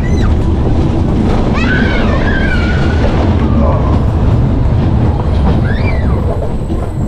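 SBF Visa spinning roller coaster running, heard from inside its rotating hamster-wheel car: a steady, loud rumble of the train on the track. Short high sliding sounds come about one and a half seconds in and again near six seconds.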